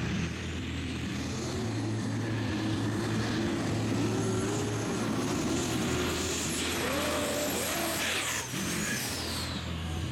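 Turbocharged engine of a mini pulling tractor running hard under load as it hauls the sled down the track, with a high whine that falls away near the end.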